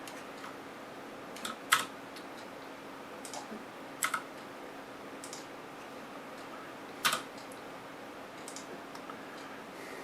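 A handful of separate computer keystrokes and clicks, a second or more apart, over a steady low hum.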